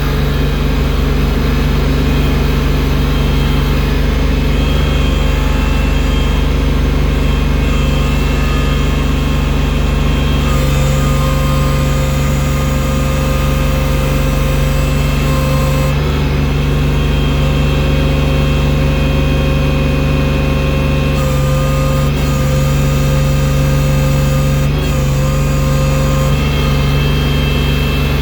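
Engine of a bucket-equipped machine clearing deep snow, running steadily without a break. Its tone shifts slightly a few times.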